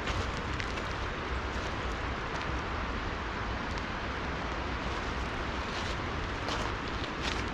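Steady rushing of a river with falling rain, sprinkled with scattered light ticks, over a low rumble.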